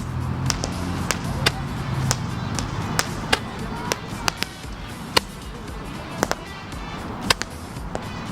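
Fireworks going off in a string of sharp, irregular pops and cracks, about two a second, over background music.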